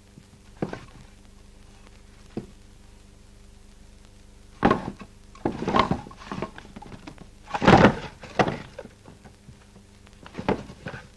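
Scattered knocks and thumps, the loudest about eight seconds in, over a faint steady low hum.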